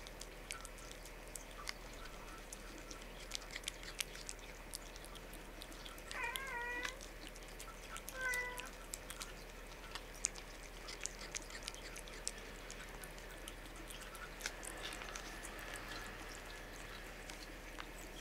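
A red tabby and white cat licking a squeeze-tube paste treat, a steady run of small wet licking and smacking clicks. Two short, wavering mews about six and eight seconds in.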